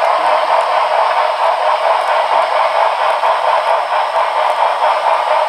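Model train running on the club layout, a steady, even rushing sound with little low end.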